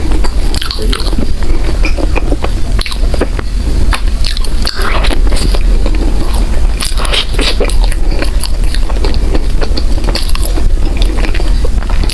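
A person biting and chewing soft bread with the mouth close to the microphone: a dense run of small sharp clicks over a steady low hum.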